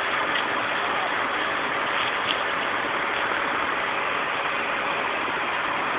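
Fire hose nozzle spraying a strong jet of water: a steady, unbroken hiss.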